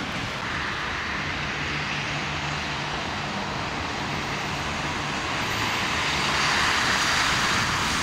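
Car traffic on a wet, slushy street: a steady hiss of tyres on wet asphalt, growing louder near the end as a car drives past.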